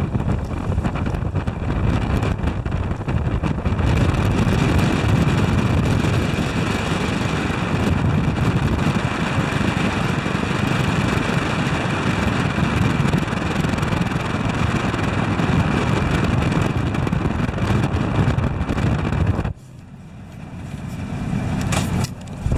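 Fairchild PT-19's Ranger inverted inline-six engine running steadily as the open-cockpit trainer taxis, with propeller and wind rush on the microphone. The sound drops away abruptly near the end.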